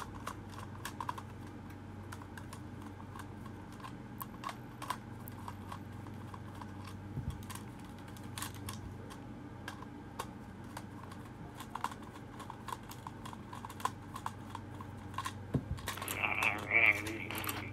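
Scattered light clicks and taps from handling a plastic toy, then near the end a 2012 Furby's high, warbling electronic voice starts up.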